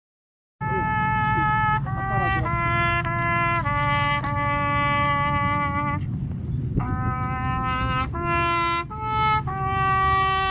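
Solo trumpet playing a slow melody of long held notes, starting about half a second in, with a brief pause near the middle.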